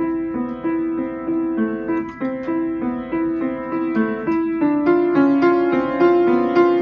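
Piano music: a quick, repeating figure of notes, about three a second, growing a little louder about five seconds in.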